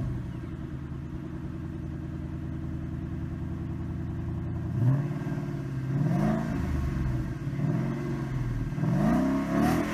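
A 2013 Mustang GT's 5.0 V8 running through a Magnaflow Street cat-back exhaust. It idles steadily just after starting, then is blipped several times from about halfway, each rev rising and falling back toward idle.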